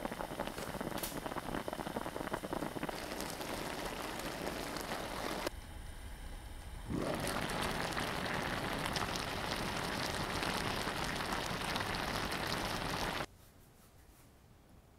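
Braising liquid of semi-dried pollack boiling hard in a pot, a dense, crackling bubbling. It eases briefly about halfway, then returns louder as the reduced sauce bubbles around the shishito peppers. It cuts off suddenly near the end, leaving quiet room tone.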